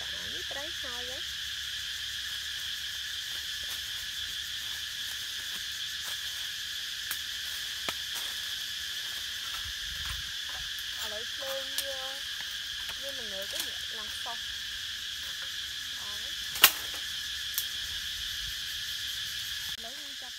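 Steady chorus of forest insects, a high drone that runs throughout, with a few sharp knocks, the loudest about three-quarters of the way through.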